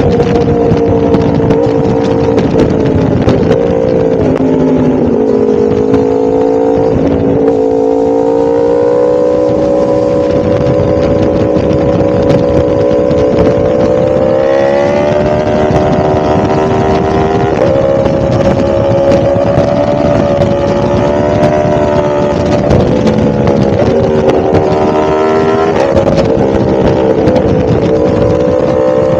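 1000cc motorcycle engine running under way, its pitch rising and falling with the throttle: it drops off about four seconds in and climbs again about halfway through.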